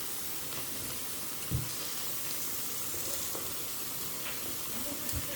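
Food sizzling steadily on a tabletop shabu-shabu hot pot and grill, with a single thump about a second and a half in.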